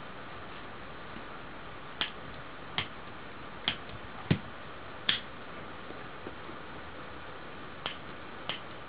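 Piezo igniter from a lighter clicked by hand, about seven sharp snaps at irregular intervals, the loudest near the middle.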